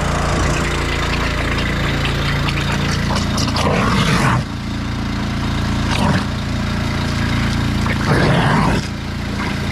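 Small gasoline engine running steadily, driving a sud sucker water-recovery pump, with short louder surges of rushing noise about three times.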